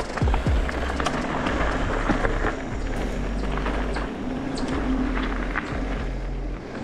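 Mountain bike ridden down a dirt flow trail: steady tyre and wind rumble with frequent sharp clicks and knocks from the bike rattling over the ground.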